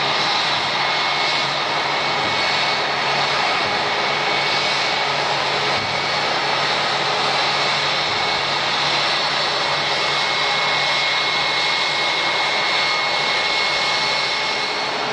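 Airbus A320-232's IAE V2500 turbofan engines at taxi idle: a steady jet whine with a thin, even high tone over a broad rush.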